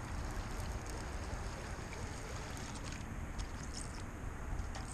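Wind rumbling on the microphone, with a few faint high ticks near the end.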